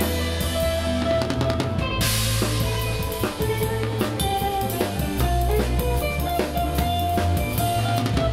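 Live rock band playing, with the drum kit loudest: bass drum, snare and cymbal strokes over a bass line and sustained melody notes.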